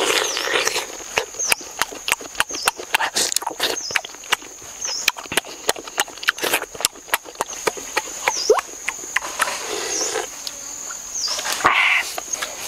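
Close-miked wet chewing, slurping and lip-smacking of someone eating a soft, juicy fruit, with many quick sharp smacks.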